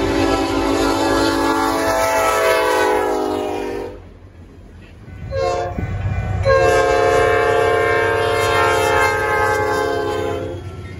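Diesel locomotive air horns sounding several notes at once: a long blast that cuts off sharply about four seconds in, a short toot, then another long blast that fades near the end.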